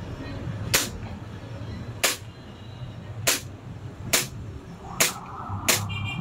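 WE Glock 18C gas blowback airsoft pistol firing six single shots, unevenly spaced about a second apart. Each is a sharp crack of gas venting as the slide blows back.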